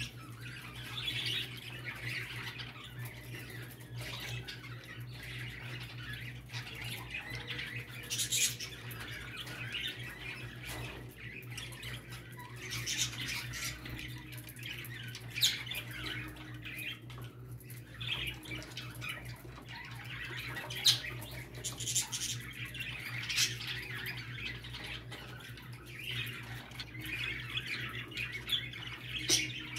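Budgerigars chattering and warbling nonstop, with frequent sharp squawks and clicks cutting through: budgie breeding chatter of the kind used to bring males into mating condition. A steady low hum runs underneath.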